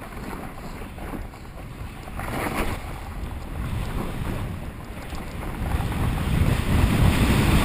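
Wind rushing over the microphone, with a snowboard sliding and scraping over snow. The rush grows louder about six seconds in.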